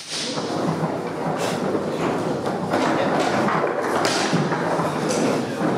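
Foosball table in play: the ball and the plastic player figures and rods knocking and thudding, a series of sharp knocks at uneven intervals.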